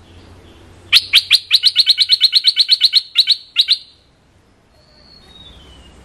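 A bulbul giving a fast chattering call of about twenty sharp notes, roughly eight a second, starting about a second in and lasting nearly three seconds. A short, faint descending whistle follows near the end.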